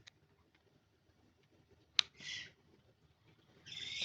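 A single sharp click from a Hatsan air rifle's automatic safety catch being worked, about halfway through, followed by brief soft hissing rustles.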